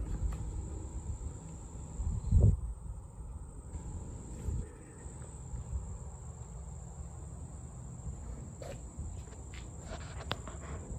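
Insects chirring outdoors, a steady high-pitched drone, over a low rumble with a thump about two seconds in.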